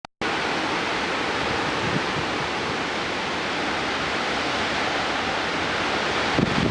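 Steady, loud roar of a severe thunderstorm's high wind and rain, starting abruptly just after the start, with wind buffeting the microphone near the end.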